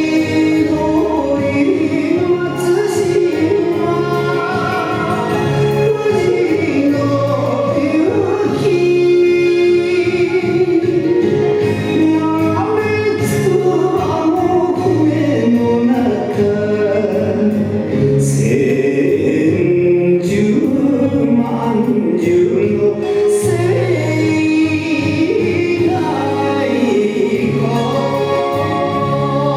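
Recorded music for a Japanese dance: a song with singing over instrumental accompaniment.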